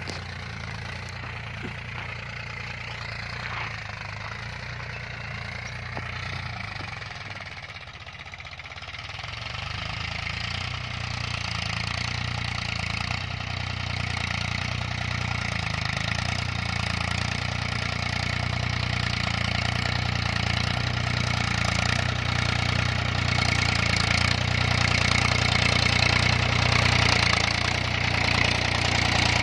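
Mahindra Yuvo tractor's diesel engine running steadily as it pulls a tillage implement through the soil. It dips slightly about eight seconds in, then grows steadily louder as the tractor draws near.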